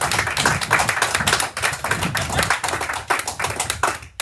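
A small group of people clapping, many quick overlapping claps that stop abruptly near the end.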